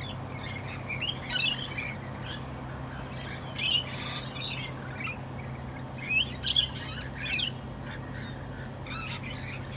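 Parrots calling with short harsh squawks and chirps, scattered irregularly, with a steady low hum beneath.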